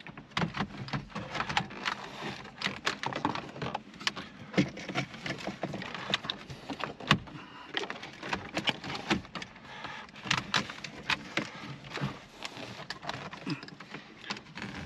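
Irregular plastic clicks, taps and knocks as a Ford F-150's center dash trim panel is handled and pressed back onto its clips. The sharpest snap comes about halfway through.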